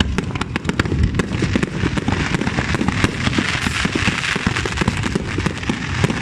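Fireworks display going off in a rapid, dense string of bangs and crackles, many shells bursting one after another.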